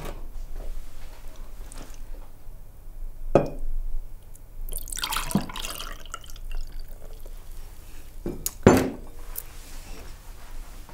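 Lemonade poured from a glass bowl through a mesh tea strainer, splashing and filling a drinking glass for about a second and a half midway. There is a short knock before the pour and a sharper, louder knock near the end.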